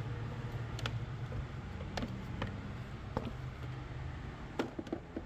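Engine cover being pulled off the 2.4L Dodge Dart engine: several sharp clicks and knocks, the loudest ones near the end, over a steady low hum.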